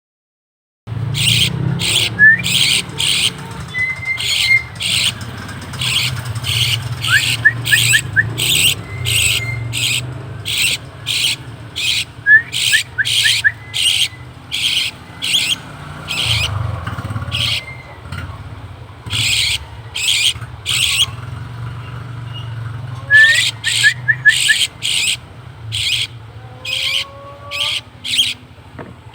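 Birds calling: a long run of short, harsh, rasping calls, roughly one or two a second with brief pauses, mixed with a few quick high chirps. A steady low hum runs underneath.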